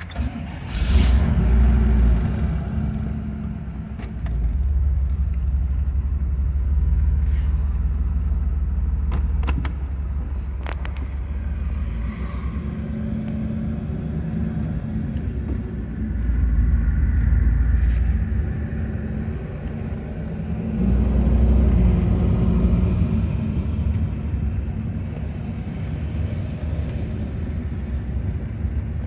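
The 350 cubic-inch V8 of a 1990 Chevrolet Camaro IROC-Z, breathing through dual exhaust, starts about a second in and then runs with a low rumble as the car drives slowly. The rumble swells three times as the engine is given throttle. It is heard from inside the car.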